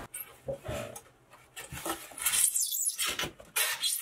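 Old fridge insulation being pried and torn out of a cubby hole: irregular scraping, crunching and rustling, louder in the second half.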